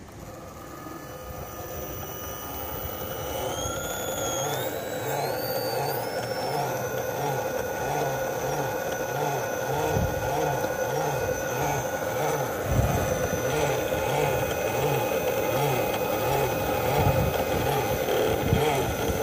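TenShock 906 six-pole sensorless brushless motor in an RC rock crawler whining as it drives the truck against a foot held on the front bumper: a torque test under stall-like load. The whine climbs in pitch in a few steps over the first several seconds as throttle is added, then holds steady.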